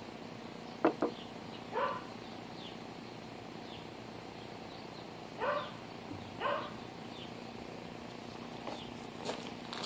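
A dog barking in short single barks, about four times, spaced a second or more apart. Small birds chirp faintly, and two sharp clicks come about a second in.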